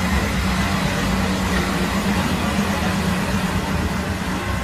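A train running by: a steady, loud rumble and rolling noise.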